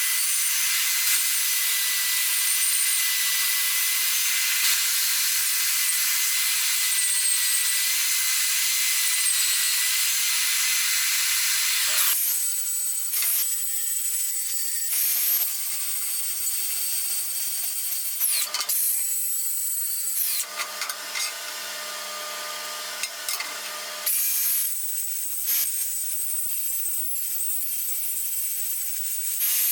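Angle grinder grinding steel grate bars. It holds one steady grind for about twelve seconds, then works in shorter passes with brief breaks and changes in tone.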